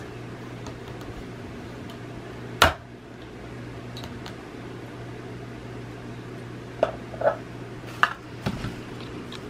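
Plastic clicks and knocks from cage pieces, among them an exercise wheel, being handled and set into a plastic bin cage over a steady low hum. One sharp click comes about two and a half seconds in, and a few quicker knocks come near the end.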